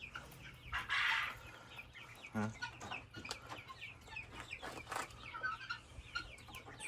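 Penned poultry chirping and clucking, with many short high peeps throughout and a brief rustle about a second in.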